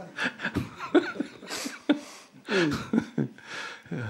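Men laughing in short bursts of chuckles, with breathy gaps between them.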